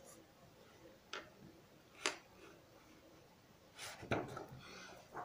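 A few light, sharp taps on a desk from a pencil being handled and laid down. The loudest cluster comes about four seconds in, with single taps before it and one near the end.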